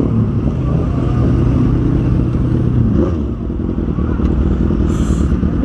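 Motorcycle engine running at low speed with road and wind noise. The engine note changes about three seconds in as the bike slows, and a short hiss comes near the end.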